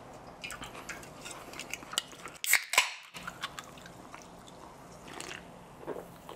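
Aluminium Diet Coke can cracked open with a short sharp pop and fizz about two and a half seconds in, followed by a few soft gulps of soda.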